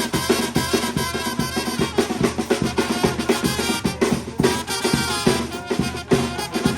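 Costeño dance music from Guerrero's Costa Chica, with a drum kit keeping a quick, steady beat of bass drum and snare under layered melody instruments.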